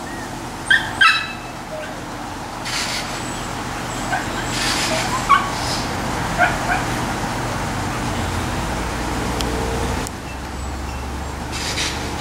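Small Lhasa apso dogs at play giving scattered short, high yips, a pair about a second in and several smaller ones a few seconds later.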